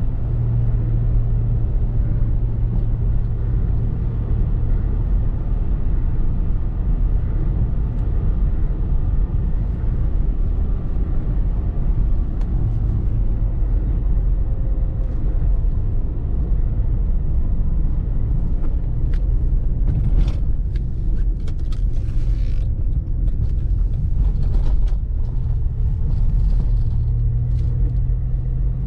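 Cabin sound of a 1989 Citroën XM on the move: steady engine and road rumble with an engine tone that swells and eases now and then. In the second half a run of short sharp clicks and rattles sounds over the rumble.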